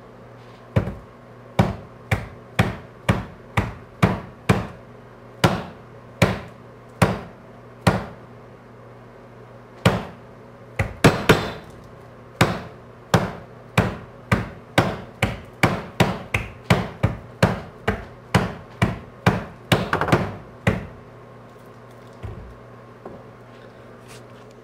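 A plastic water bottle being pounded bottom-down on a countertop: about thirty sharp knocks, one or two a second, stopping about 21 seconds in. Striking a bottle of chilled, supercooled water like this sets off its sudden freezing.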